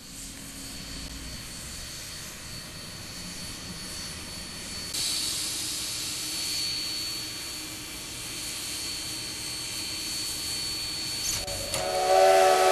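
Cumbres & Toltec narrow-gauge steam locomotive standing and hissing steam steadily, the hiss growing louder about five seconds in. Near the end its steam whistle blows loudly, several notes at once.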